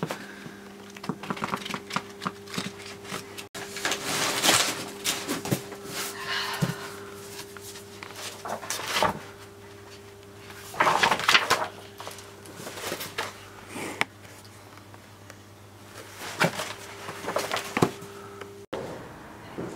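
Pages of a large old paper ledger being turned and the heavy book handled: irregular bursts of paper rustling and soft knocks over a steady low hum.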